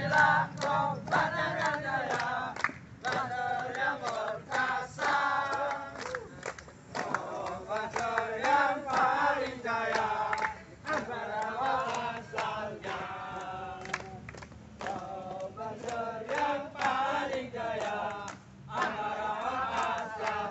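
A group of men chanting and singing a rally cheer together in unison, with hand clapping.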